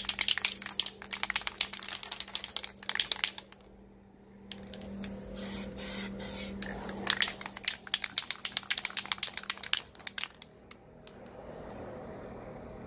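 Aerosol can of Dupli-Color vinyl spray paint being shaken, its mixing ball rattling fast, then a hiss of spraying lasting about two seconds, more rattling shakes, and a steadier hiss near the end. A faint steady low hum runs underneath.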